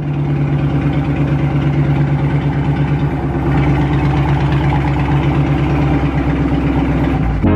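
Dodge Charger Scat Pack's 392 Hemi V8 idling steadily through its stock exhaust, just after a warm start, with an even, low exhaust pulse.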